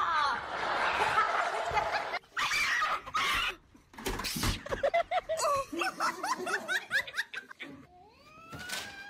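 A plastic laundry basket clattering down wooden stairs for about two seconds, then a person laughing in short repeated breaths, and near the end a cat's rising call.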